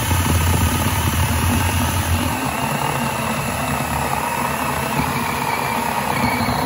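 DeWalt 12-inch 20V MAX brushless cordless chainsaw (DCCS620B), running on a small 2 Ah battery, with its chain cutting through a 4x4 timber. There is a steady motor-and-chain whine over a deep hum, and the deep hum eases about two seconds in.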